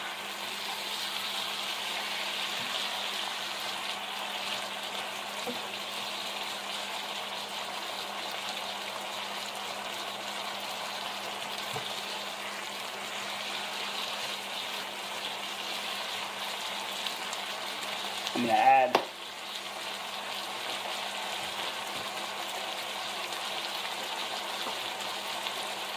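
Vegetables (onions, peppers and mushrooms) sizzling steadily as they fry in a pan. About three-quarters of the way in, a short vocal sound rises briefly above the sizzle.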